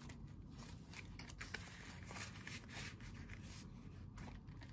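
Faint rustling and scraping of paper banknotes being slid into a plastic zip-top cash pouch, with small scattered clicks and scrapes as the pouch's zipper is worked shut.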